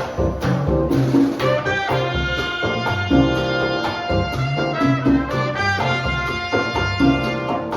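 Latin jazz band playing live, with a bass line and percussion under horn lines led by trumpet that come in about a second and a half in.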